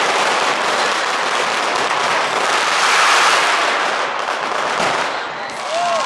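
A long string of firecrackers going off in a rapid, continuous crackle, easing briefly about five seconds in before picking up again.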